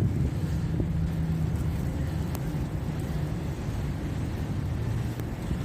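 Road traffic: motor vehicle engines running with a steady low hum.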